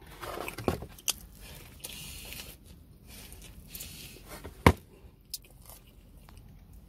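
A person eating pepperoni pizza close to the microphone: chewing and mouth noises with scattered sharp clicks and knocks, the loudest a single sharp click about two-thirds of the way through.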